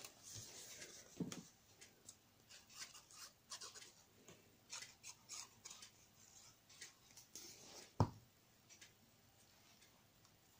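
Faint, irregular snips and rubs of card paper being cut and handled, with a single sharp knock about eight seconds in.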